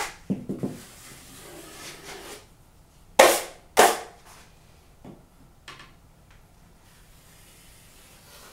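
Steel drywall taping knife scraping and clacking against a mud pan while working joint compound: a run of light scrapes and clicks, then two loud sharp scrapes about half a second apart a little past the middle, and a few faint taps after.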